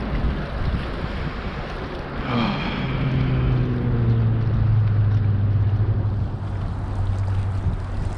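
Wind buffeting the microphone, with a low engine drone that sets in about two seconds in, holds steady with its pitch sinking slightly, and fades near the end, like a motor passing by.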